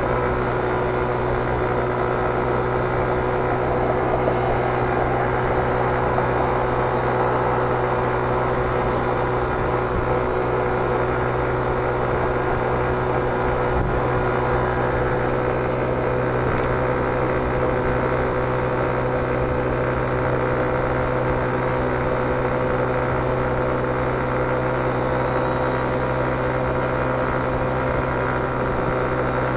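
Motor scooter engine running steadily at cruising speed, a constant hum with low wind and road rumble.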